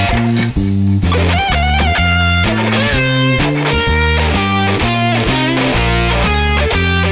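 Background music led by electric guitar, with a bass line underneath.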